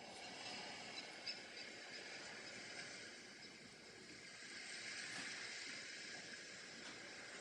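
Watercolor brush brushing paint across cold-press watercolor paper: a soft, scratchy hiss that swells and fades with the strokes, with a couple of faint ticks about a second in.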